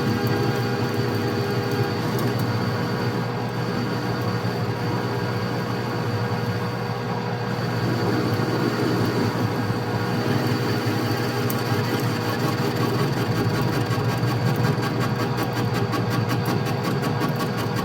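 Metal lathe running and taking an interrupted cut on off-centre stock: a steady motor and gear hum with a rapid, regular ticking of the tool meeting the work, plainer near the end. The lathe does not like interrupted cuts.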